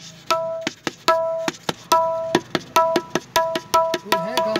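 Tabla dayan (the right-hand treble drum) played with the fingers: a quick run of strokes, the open ones ringing with a clear pitch and overtones, mixed with short, dry damped strokes.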